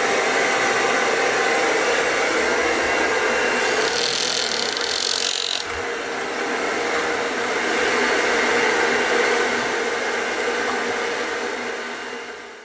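A steady whooshing machine noise without a break, with a brief higher hiss about four seconds in.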